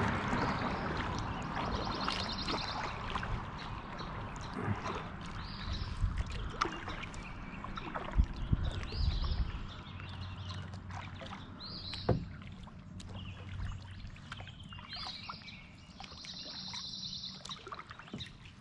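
Kayak drifting and paddling on the river current: rushing water, loudest at first and then fading, with paddle splashes and a few sharp knocks. A bird trills rapidly twice, about two seconds in and near the end, with other short high calls in between.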